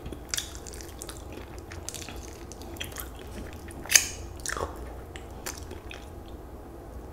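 Close-miked eating sounds of a person chewing fried chicken wings and sucking the meat off the bone: soft wet chewing, lip smacks and small clicks, with a louder sucking smack about four seconds in as the wing goes to her mouth.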